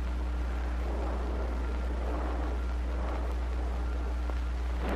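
Steady low hum and faint hiss of an old film soundtrack, with no distinct sound events.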